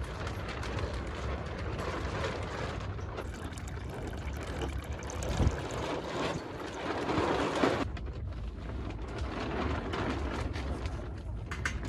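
Rain falling steadily, with a thump about five seconds in and a louder rushing stretch that stops abruptly near eight seconds.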